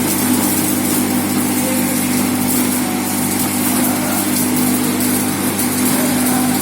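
Electric arc welding: the arc crackling steadily without a break, over a constant low hum.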